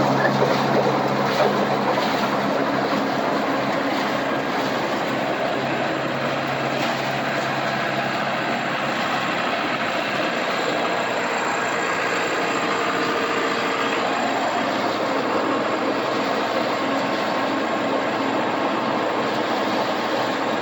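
Farm machinery running steadily: a continuous mechanical rush with an engine hum underneath that fades after about eight seconds.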